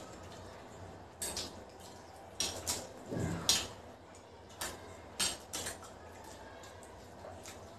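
Metal spoon and fork clinking and scraping against ceramic plates in short, irregular clinks, the loudest cluster about three seconds in.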